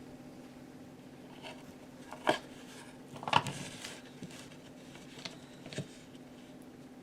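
A few separate light knocks and clicks of tools and parts being handled, the two loudest near the middle, one followed by a short scrape, over a steady low hum.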